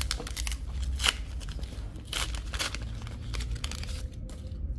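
Flesh and Blood trading cards being handled and sorted: a run of short rustling, crinkling scrapes, the sharpest about a second in.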